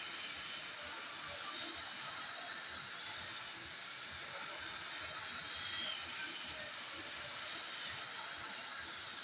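Lego 9V electric freight trains running around their track: a steady whirring hiss with many light, irregular clicks of wheels and cars on the rails.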